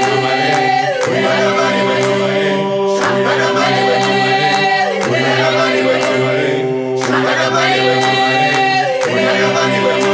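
Group of voices singing a cappella in harmony, holding long chords that change about every two seconds.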